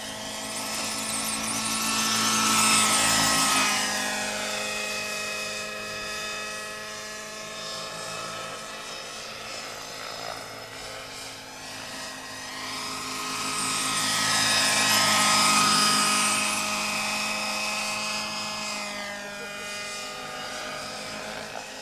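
Radio-controlled model helicopter flying, a steady high whine of motor and rotor. It grows loud as the helicopter comes close about 3 seconds in and again about 15 seconds in, and its pitch falls as it moves away after each close pass.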